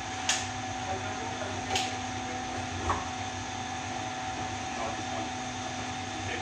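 Steady workshop machine hum with a low tone and a higher tone held throughout. Three sharp knocks from handling metal at the bench fall in the first three seconds.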